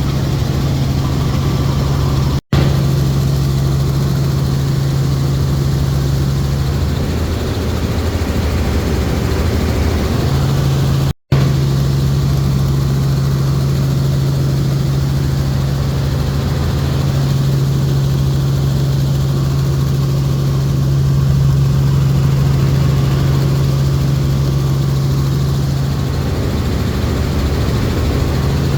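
Helicopter running steadily, a loud continuous drone with a strong low hum from the rotor and engine. The sound cuts out for an instant twice, a few seconds in and about a third of the way through.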